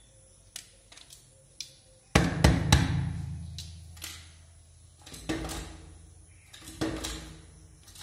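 A bird pecking hard at a window pane. A few light taps come first, then three loud knocks in quick succession about two seconds in, with the glass ringing low after them, and then single knocks a second or two apart.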